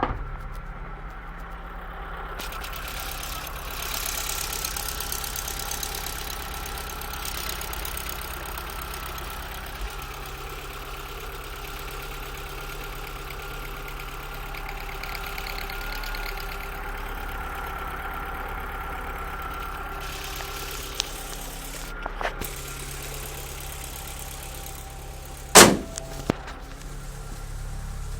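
Opel Z20LER 2.0 turbo four-cylinder engine idling cold with a steady high-pitched squeak, caused by a loosened exhaust manifold bolt letting the manifold gasket leak. A single sharp knock about 25 seconds in.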